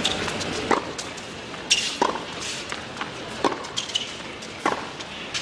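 Tennis ball struck back and forth by racquets in a rally, a sharp hit roughly every second.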